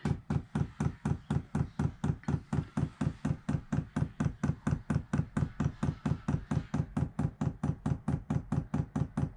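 Electric fuel dosing pump of a Chinese diesel heater clicking steadily, about five clicks a second, as it runs in priming mode to draw diesel from the tank up the fuel line to the heater.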